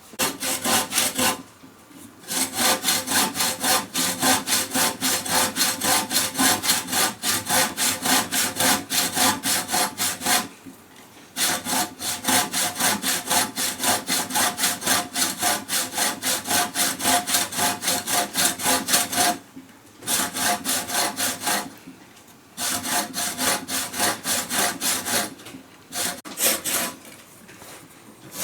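Hand saw cutting through wood in quick, regular back-and-forth strokes, in several runs broken by short pauses.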